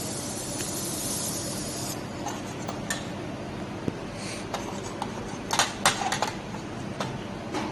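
Handheld fiber laser welder hissing steadily, cutting off about two seconds in. Then a few metallic clinks and taps follow, loudest about six seconds in, over a steady low machine hum.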